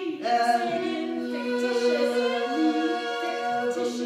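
Wordless singing in long held notes, with several pitches sounding at once and shifting about once a second.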